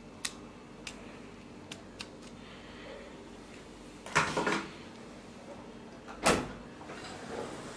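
Hard plastic clicks and knocks as a GoPro camera and its waterproof housing are handled: a few light clicks in the first two seconds, a louder clatter about four seconds in, and one sharp clack about six seconds in.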